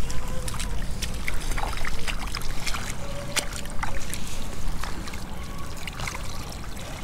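Wind rumbling on the microphone, with small trickles and splashes of seawater and scattered sharp clicks as a hand dips into a shallow pool on the sand and lifts something out.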